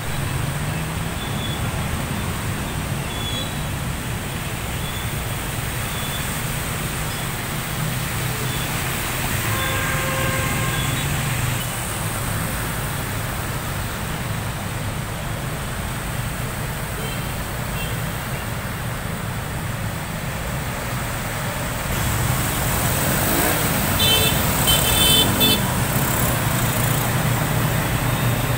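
Motorcycles and cars driving through a flooded road, engines running over a steady wash of noise. A horn sounds about ten seconds in, and the traffic gets louder near the end.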